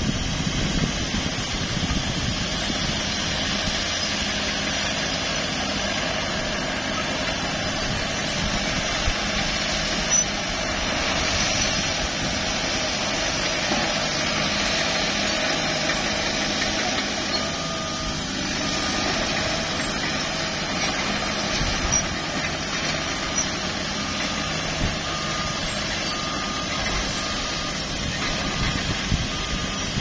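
Diesel engines of a Caterpillar crawler dozer and a smooth-drum road roller running steadily under work. From about halfway through, a reversing alarm beeps about once a second.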